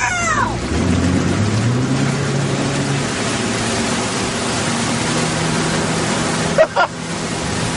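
Motorboat engine running steadily under the rush of spray and wind, its pitch rising a little about a second in as it pulls the skier. A brief high gliding cry sounds right at the start and another near the end.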